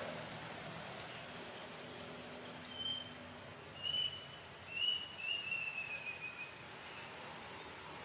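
Outdoor nature ambience with a bird calling: a few short high whistles about three seconds in, then a longer whistle that falls slightly in pitch, over a soft steady hiss.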